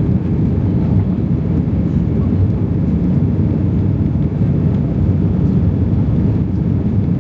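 Airbus A320 airliner heard from inside the cabin: a loud, steady low rumble of jet engines and airflow.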